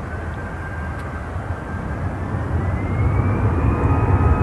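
Airbus A320 airliner's jet engines spooling up: a thin whine climbs in pitch and levels off near the end, over a rumble that grows steadily louder, as thrust builds on the runway.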